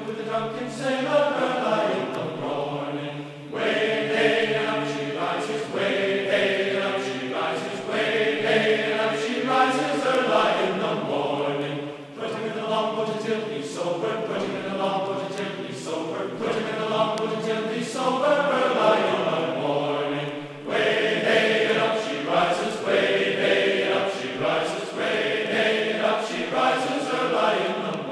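Background music: a choir singing, in phrases a few seconds long.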